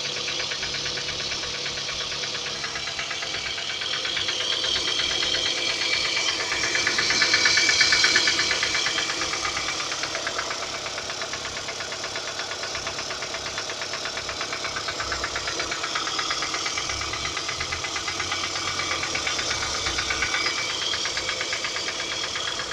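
Toyota Camry XV30 engine running cold with a fast, even knocking, like a train's clatter, that the owner says fades once the engine warms up. The knocking grows louder for a few seconds near the middle, then settles back.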